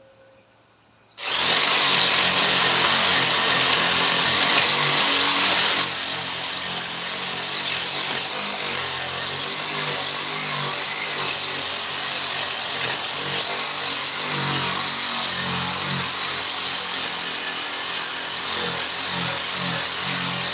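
Electric power tool working wood, starting suddenly about a second in, loudest for the first few seconds, then running steadily a little quieter.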